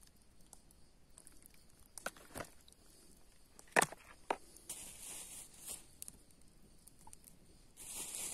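Handling sounds: a few light knocks, then one sharp clack a little under four seconds in as the plastic bowl of raw chicken is set down, followed by a rustling hiss that grows louder near the end.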